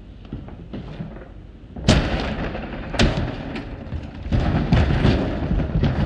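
A dishwasher thrown out and hitting the ground: one heavy crash about two seconds in, a second hard hit about a second later, then a run of rattling knocks as it comes to rest.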